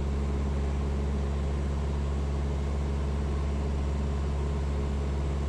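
Cessna 172's piston engine and propeller running steadily in cruise flight, a constant low hum heard inside the cabin.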